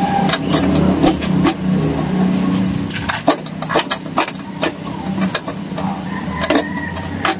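Hands pressing and working gritty potting soil down around a newly repotted bonsai, giving many short crackling and scraping clicks. A steady low rumble of traffic runs underneath.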